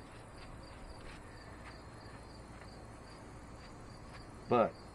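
Insects chirping in a steady high pulse, several beats a second, with faint scratchy strokes of a paintbrush working sealer into a charred board. A single spoken word breaks in near the end.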